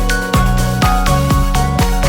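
Background music with a steady beat of about two strokes a second and held melodic notes.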